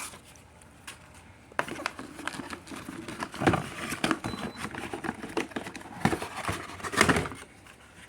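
Packaging being handled: irregular rustling and crinkling with scattered knocks and taps, starting about a second and a half in.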